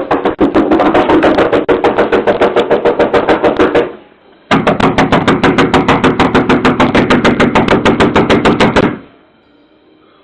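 Rapid, loud pounding on a front door, about eight blows a second, in two long runs with a half-second break about four seconds in. It is urgent knocking to raise the people inside, and it stops about a second before the end.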